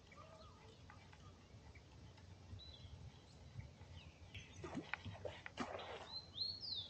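Splashing on the water about five seconds in, a fish striking at a topwater plug being worked along the surface. Birds give sharp rising-and-falling chirps near the end, with softer chirps about three seconds in.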